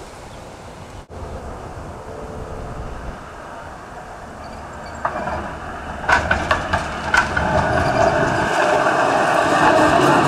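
Melbourne Z3-class electric tram passing close by, its running noise growing steadily louder as it approaches. A quick run of sharp clacks comes about six to seven seconds in, as the wheels roll over rail joints.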